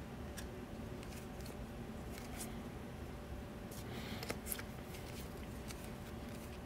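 Paper baseball cards being thumbed and slid against one another in the hands: faint, scattered flicks and rustles, a little busier about four seconds in, over a steady low hum.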